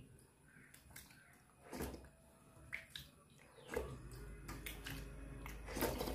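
A hand squishing and scooping water-soaked rice (panta bhat) in a steel bowl: a few separate wet squelches and splashes, the loudest near the end.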